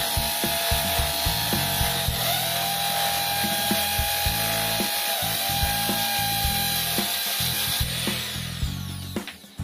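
Corded electric impact drill running as it bores a hole, its motor whine dipping in pitch a few times as the bit bites and then recovering, winding down near the end.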